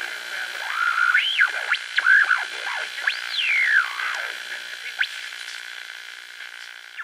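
Electronic synthesizer intro music for a logo: sliding whistle-like tones sweep up and down over a steady held tone, fading away toward the end.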